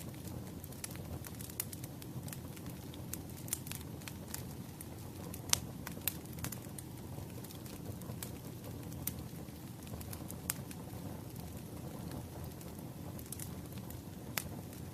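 Wood fire burning steadily, with a low rushing rumble and irregular sharp crackles and pops from the firewood, the loudest pop about five and a half seconds in.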